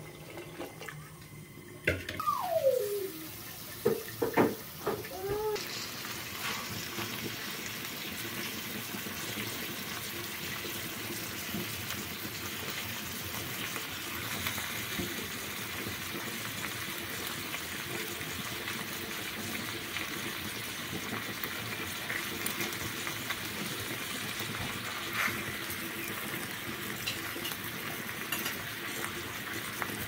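Water poured from a jug into a pot of boiling peas, with a few loud gurgles in the first seconds. Then a long, even hiss of food cooking on a gas stove.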